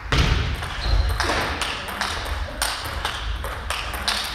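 Table tennis rally: a quick series of sharp clicks, about two a second, from the celluloid-type ball striking the rubber-faced paddles and bouncing on the table. Low thuds sound underneath, heaviest in the first second and a half.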